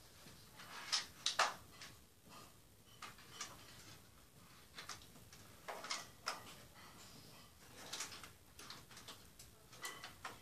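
Irregular small clicks and taps, scattered a second or two apart, the loudest a close pair about a second and a half in, over faint room noise.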